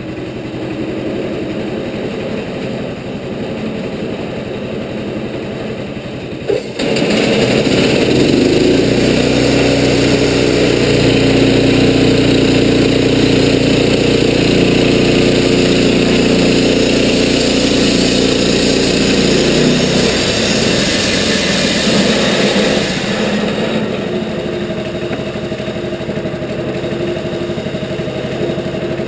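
Wood-Mizer LT15 portable band sawmill's engine running steadily, then after a click about a quarter of the way in it runs louder as the band blade saws through a western red cedar log. Near the end it eases back to a lower, steady running.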